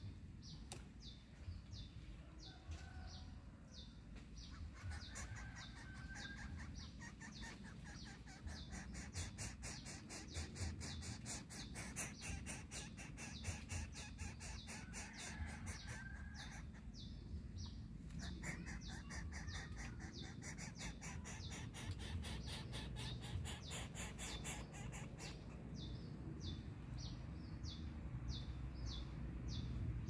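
Coucal and chick at the nest, making a few faint short chirps over a steady low rumble. A fast high ticking runs through it and thickens into a dense buzz in the middle.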